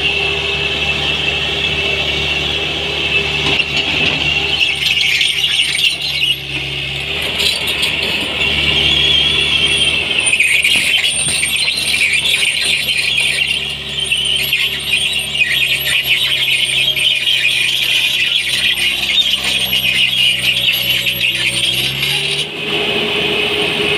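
JCB tracked excavator's diesel engine running under load with a loud, continuous high-pitched squeal that wavers slightly in pitch, typical of the steel tracks and undercarriage as the machine travels. The engine note shifts a few times as the machine works.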